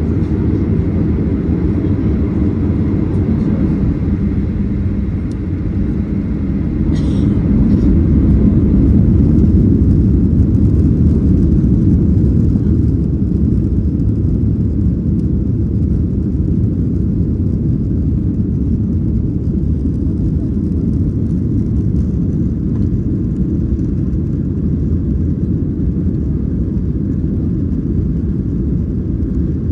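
Boeing 737-800's CFM56 turbofan engines at takeoff power: a loud, steady low rumble that swells a little partway through.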